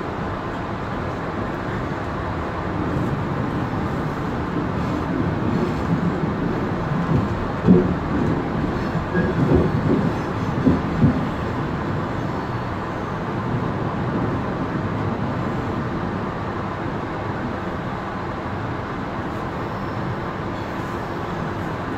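Sydney Trains Tangara electric train running along the track, heard from inside its guard's cab: a steady rumble, with a few short, louder knocks about seven to eleven seconds in.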